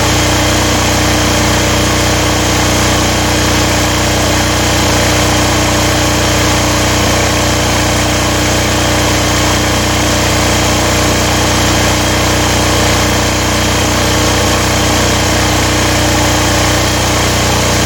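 Aurora AGI6500DE diesel generator running steadily at constant speed, its single-cylinder diesel engine warming up after a cold start while carrying a light load.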